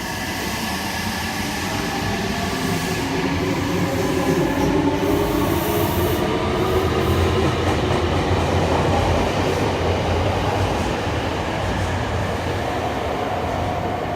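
Nagoya Municipal Subway train running, with the noise of the wheels on the rails and a motor whine whose pitch shifts gently. It grows louder toward the middle and eases off toward the end.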